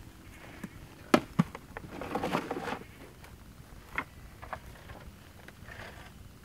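Quiet handling noise from buckets and a metal stockpot of corn ears being set down: two sharp knocks about a second in, a short rustle, then another knock near four seconds.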